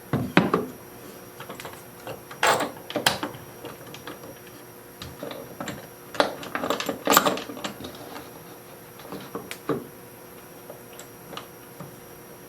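Irregular knocks, clicks and clunks of wooden pieces and tools being handled and set down, coming in a few short clusters.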